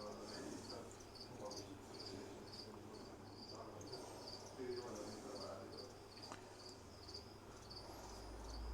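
A cricket chirping steadily, faint, about three short high chirps a second, with faint rustling underneath.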